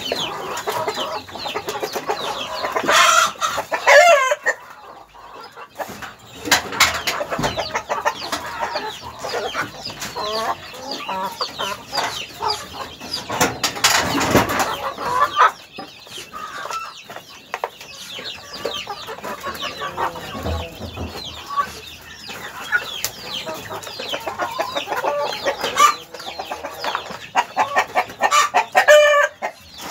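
A flock of domestic chickens clucking and calling without pause, many short calls overlapping. Louder bursts of calling come about three seconds in, around the middle and near the end.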